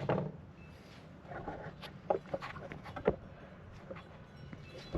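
A few scattered light clicks and knocks of metal and plastic parts being handled, as the wiper motor and linkage are put back in place.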